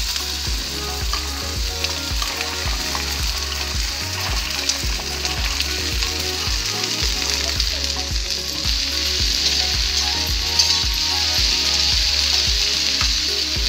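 Sliced okra frying in hot mustard oil with onions in a steel kadhai, a steady sizzle, as it is tipped in and stirred with a metal spatula.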